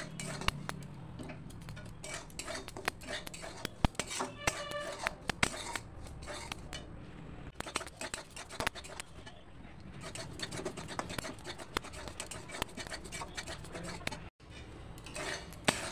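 A metal spoon scraping and clicking against a metal kadai while stirring semolina being roasted, in a run of short, irregular scrapes and taps.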